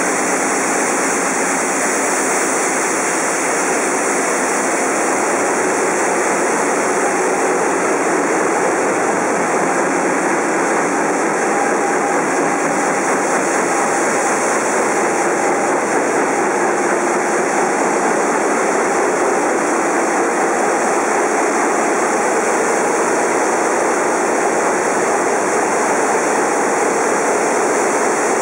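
Ship's engine room at sea: running engines and pumps making a loud, steady, unchanging roar, with a faint steady whine mixed in.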